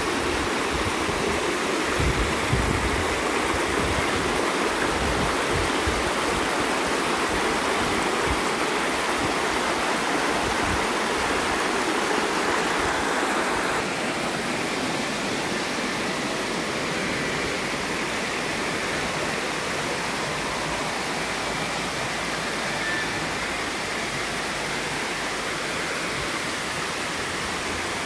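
Water overflowing a masonry dam and sheeting down its spillway face into the stream below: a steady rushing of falling water, a little quieter from about halfway through.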